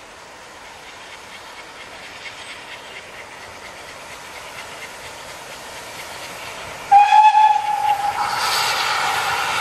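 Steam locomotive approaching, its sound slowly growing louder, then a sudden loud whistle blast about seven seconds in, held on as a steady whistle chord with steam hissing.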